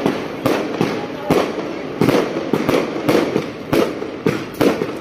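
Fireworks and firecrackers going off in quick, irregular succession: sharp bangs about two to three a second over a continuous crackling hiss.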